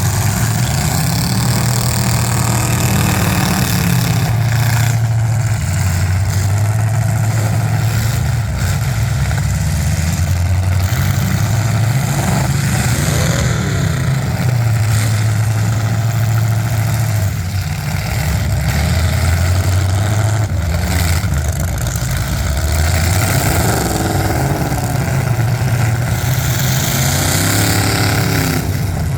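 Demolition derby cars' engines running and revving, their pitch rising and falling throughout, with a few sharp bangs.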